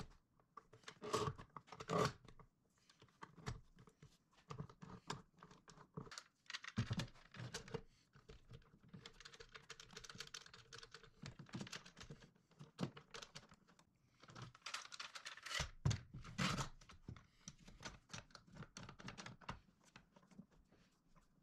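Irwin parallel bar clamps being set and tightened on a glue-up: scattered clicks and knocks of the clamp jaws and bars, with short stretches of scraping.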